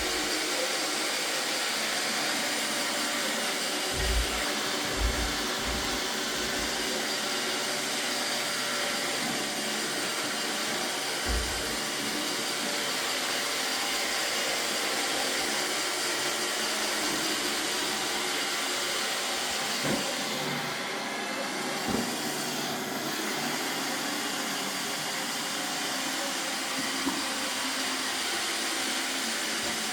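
iRobot Roomba 772e robot vacuum running, a steady whirring hum of its suction motor and brushes, with a handful of short dull thumps.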